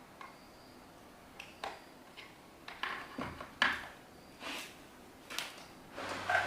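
Metal parts and tools being handled during a fan repair, a scattered series of clicks and clinks. Near the end a steady low electric hum starts.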